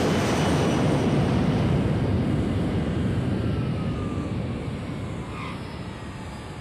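Jet airliner's engines roaring as it comes in to land, with a faint whine over the roar, fading over the last couple of seconds.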